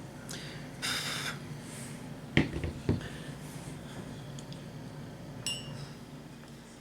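Small handling sounds of hard craft tools against a plate: a brief scrape about a second in, two sharp clicks shortly after, and one small ringing clink near the end, over a steady low hum.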